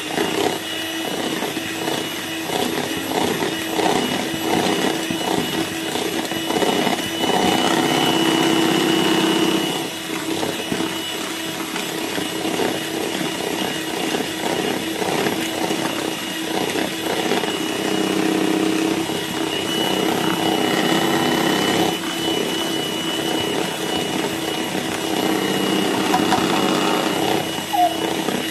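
Electric hand mixer running steadily, its beaters whipping egg whites with powdered sugar in a bowl: a motor hum with a high whine.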